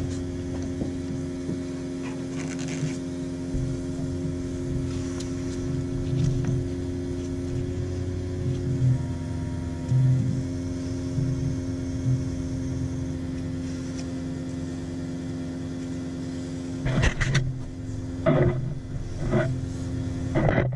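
Electric fuel pump running to pressurize the fuel rail while an adjustable fuel pressure regulator is set, a steady hum whose tone shifts slightly about nine seconds in. A few short bumps from handling near the end.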